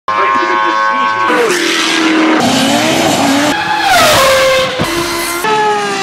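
Several different race car engines at high revs, cut together in quick succession so the sound changes abruptly about every second, the pitch rising and falling as the cars rev, shift and pass. Near the end a Ferrari FXX's V12 holds a high note that slowly falls as it goes by.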